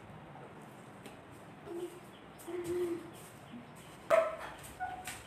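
A woman's muffled closed-mouth vocal sounds through a mouthful of food: short faint hums about two and three seconds in, then a sudden louder cry just after four seconds and a brief higher hum near the end.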